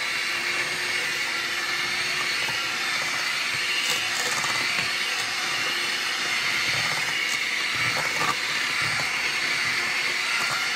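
Electric hand mixer running steadily at constant speed, its beaters creaming fresh butter in a stainless steel bowl until it turns fluffy, with a couple of light knocks of the beaters against the bowl.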